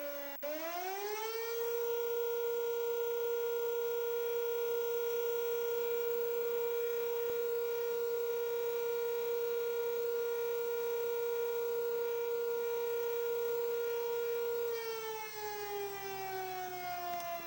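Outdoor civil defense warning siren sounding a tsunami warning: it winds up within the first second or so, holds one steady tone for about 13 seconds, then winds down near the end.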